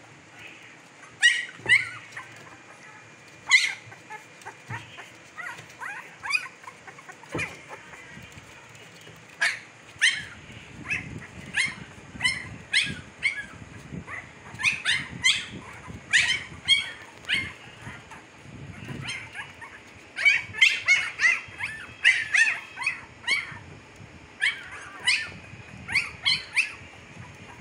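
Two-week-old Siberian husky puppies crying, a string of short, high-pitched whimpers and squeals, thickest about twenty seconds in.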